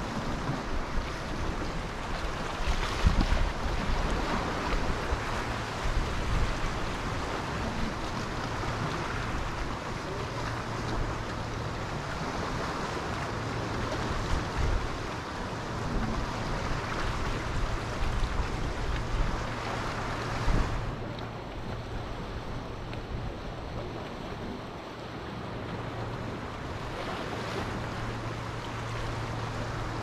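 Sea waves breaking and washing on the shore in a continuous rush, with wind buffeting the microphone.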